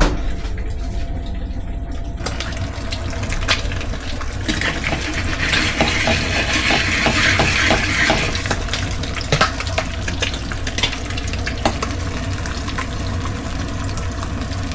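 Two eggs frying in a frying pan: a sizzling hiss with scattered crackling pops, swelling loudest a few seconds in and then settling to a steadier sizzle.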